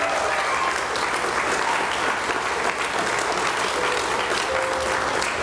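A crowd of guests applauding steadily, many hands clapping at once.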